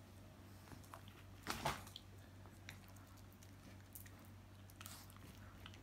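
Dog chewing a piece of banana: faint wet mouth sounds and small clicks, loudest about one and a half seconds in.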